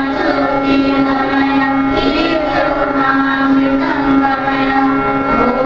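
Group of schoolgirls singing a prayer together into microphones, over a steady held drone note.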